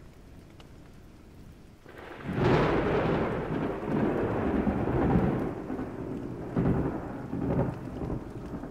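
Thunder with rain: a sudden crack about two seconds in, then a rolling rumble that swells again several times.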